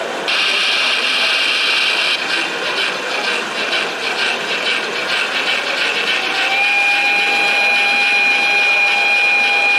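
Sound module of a large-scale model of the Saxon IV K narrow-gauge steam locomotive 99 551. A hissing steam sound starts suddenly and pulses in a quick beat, and about six and a half seconds in a steady high tone comes in and holds.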